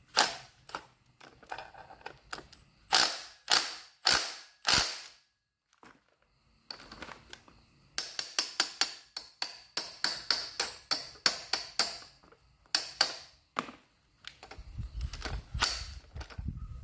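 Cordless impact wrench hammering in short trigger bursts on the central nut of a Stihl MS 200T chainsaw: one burst, four more about half a second apart, then a quicker run of metallic clicks and rattling for several seconds, and another burst near the end.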